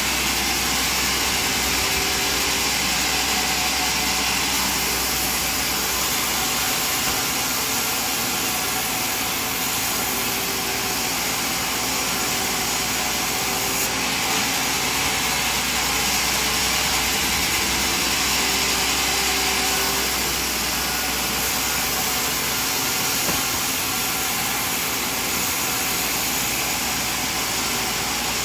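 Sawmill machinery running steadily: an even mechanical hiss and hum that does not change.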